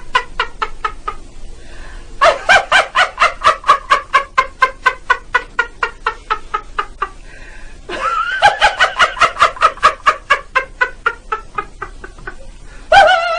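A man laughing uncontrollably: long runs of rapid, high-pitched laughs, about five a second. Each run trails off and breaks, then starts again loud about two seconds in and about eight seconds in, with a sudden louder note near the end.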